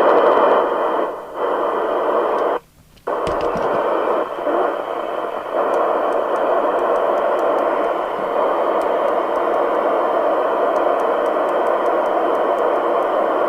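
Cybernet Beta 2000 FM CB radio on its aerial, its speaker giving a steady rush of receiver noise. The noise cuts out for a moment just under three seconds in, then carries on.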